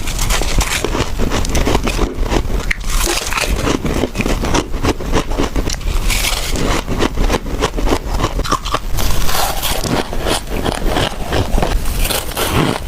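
Soft humidifier frost ice being crunched and scraped: a dense, continuous run of crisp crackles without pauses.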